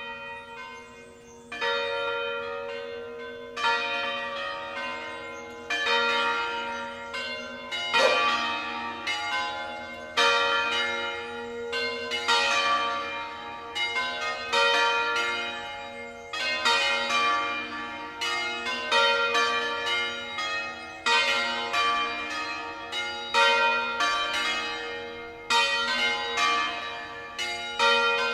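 A ring of five church bells tuned B♭-C-D-E♭-F, swung full circle in a 'distesa' peal. The clappers strike over and over in an uneven, overlapping tumble, with stronger strokes about every two seconds. The bells start sounding just as it begins: sparse at first, then a continuous ringing.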